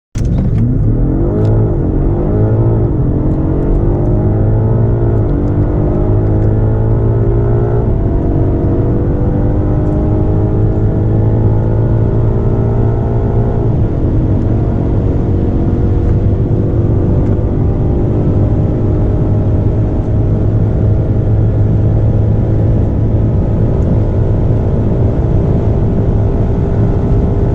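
Performance car engine accelerating at full throttle through the gears, with four upshifts in the first 14 seconds each dropping the pitch. It then climbs slowly in a high gear toward top speed, over a steady low road and wind drone.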